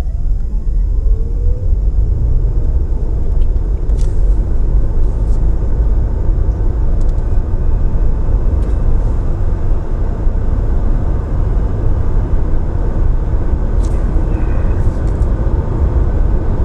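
Ford Transit Custom Plug-In Hybrid van heard from the cabin, accelerating at full power from about 10 to 100 km/h. A drive whine rises in pitch over the first two seconds, then a steady low rumble of tyre and road noise continues.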